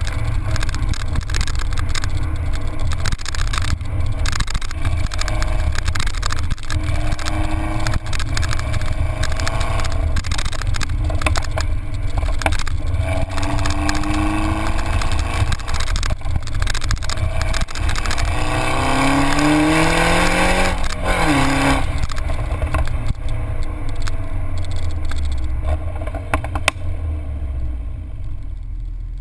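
MINI Cooper R56 fitted with a John Cooper Works exhaust, heard at its twin centre tailpipes while driving. The exhaust note rises in pitch under acceleration about halfway through and again, higher, past two-thirds, then falls as the throttle is lifted, over a heavy low rumble of wind and road noise.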